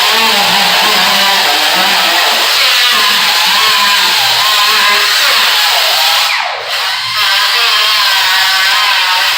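Power grinder running continuously on bare sheet metal, a loud wavering whine. About six and a half seconds in, it briefly slows and spins back up.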